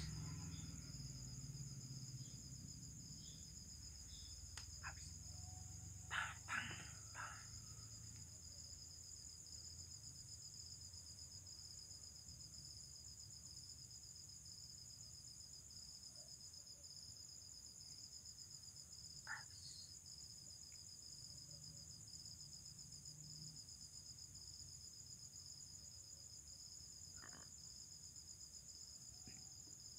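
Insects chirping in a faint, steady, high trill, with a few faint short sounds about six seconds in and again near twenty seconds.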